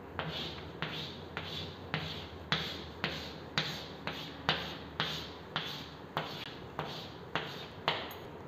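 Chalk on a chalkboard drawing a run of short diagonal hatch lines: each stroke starts with a sharp tap followed by a brief scrape, about two strokes a second.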